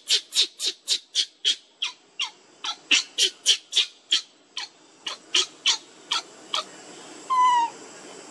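Baby macaque crying in distress: rapid, sharp, high-pitched shrieks about three a second, slowing and fading out after about six seconds. Near the end comes one longer call of even pitch.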